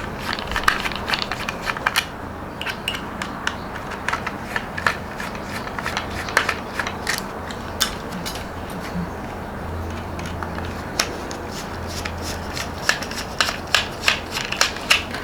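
Small irregular clicks and scrapes as a screwdriver works out the small screws holding a Hornby GWR Collett autocoach's plastic body together, along with handling of the coach. The clicks thin out in the middle and come thick and fast near the end.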